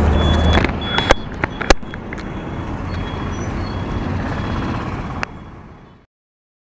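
Road traffic noise heard from a moving bicycle, with a low rumble that stops about half a second in and a few sharp knocks between one and two seconds in. The noise drops a little after five seconds and fades out.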